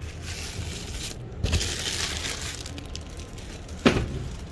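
Cardboard box flaps and plastic produce packaging rustling and crinkling as a produce delivery box is handled and opened, with one sharp knock near the end.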